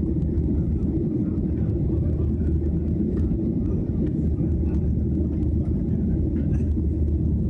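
Steady low rumble of a jet airliner's engines and rushing air, heard from inside the passenger cabin during the climb after takeoff.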